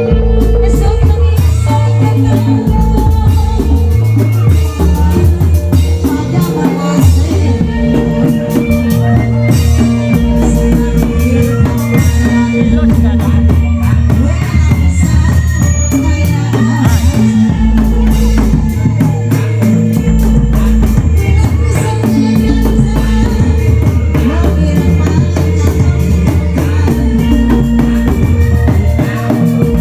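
Loud, continuous live music from an Indramayu reog ensemble, with a steady drum beat over a repeating bass line.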